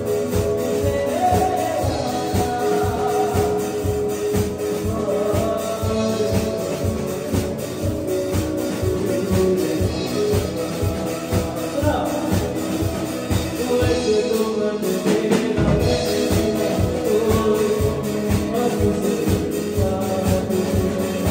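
Live band playing: a singer over drum kit, electric guitar and keyboard, with a steady beat. A little past the middle the drums drop out for about a second, then come back in with a hit.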